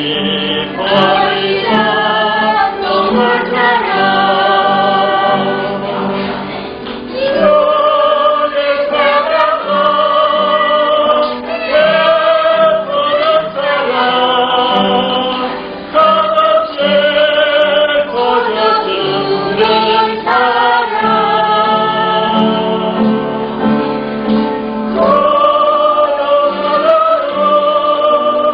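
A group of voices singing a Korean church hymn together, in long held notes with a slight waver.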